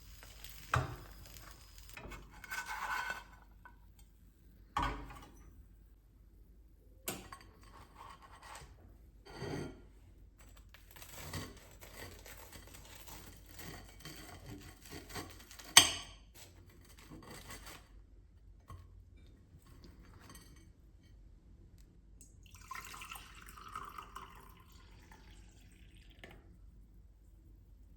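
Kitchen work sounds: dishes, glassware and utensils knocked and set down in a series of separate clinks, the sharpest about 16 s in, with liquid poured for a few seconds near the end.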